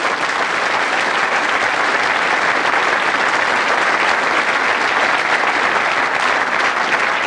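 Large audience applauding steadily, dense clapping from many hands.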